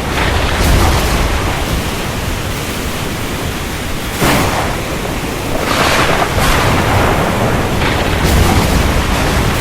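Stormy ocean: continuous heavy surf and wind, with waves surging louder several times, most sharply about four seconds in and again around six and eight seconds.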